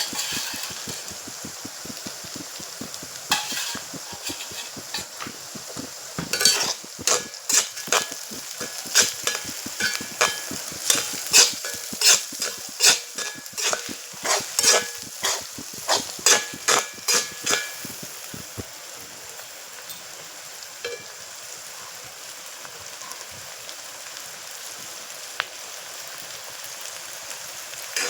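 Food sizzling in a frying pan while being stirred with a spatula. The spatula scrapes and clinks against the pan about twice a second for a stretch in the middle, then stops, leaving the steady sizzle.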